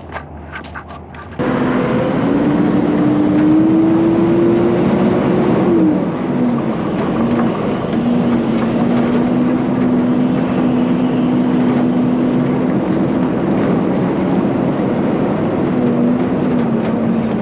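A few light clicks, then an engine comes in suddenly and loud about a second and a half in. Its pitch rises slowly for several seconds, drops, and then holds steady.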